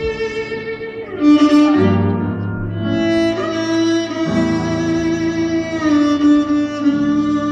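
Violin playing long held notes over a lower accompaniment whose chords change about every two and a half seconds.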